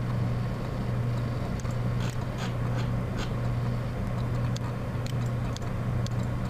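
Steady low hum from the recording setup, with a handful of short sharp clicks about two to three seconds in and a few fainter ones later, typical of computer keys or a mouse.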